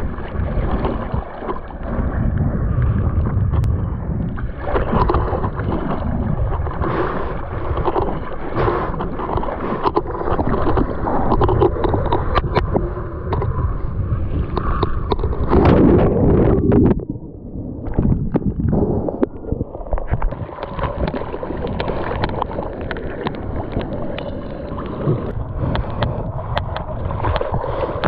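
Seawater splashing and gurgling against a surfboard-mounted action camera as the board is paddled out through choppy waves, with wind buffeting the microphone. The loudest rush of water comes just past halfway, and the sound is muffled for a couple of seconds after it.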